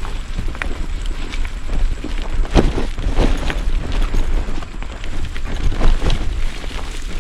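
Loud rumbling noise on the microphone with scattered knocks and crackles, the busiest cluster of knocks a little before the middle and another near the end.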